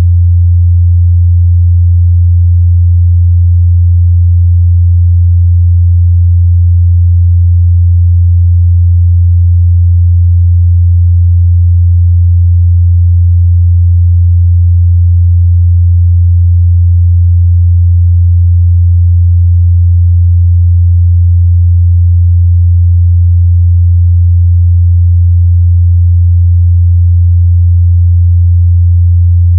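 A pure 87 Hz sine test tone, a steady low hum held at constant loudness throughout.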